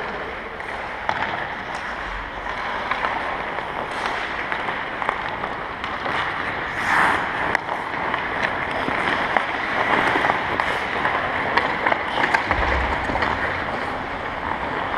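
Ice hockey practice on the ice: skate blades scraping and carving the ice, with many sharp clicks and knocks of sticks hitting pucks.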